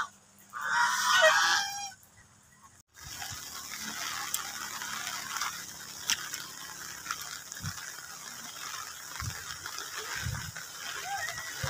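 Domestic geese honking loudly for about a second and a half near the start, then a brief silence. After that, only a faint, even background with a few soft clicks.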